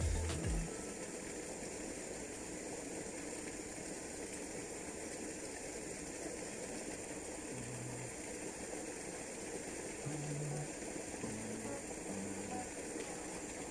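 Small spinning reel being cranked steadily as a lure is retrieved, a faint mechanical whirr and ticking under a steady low hiss of outdoor background noise.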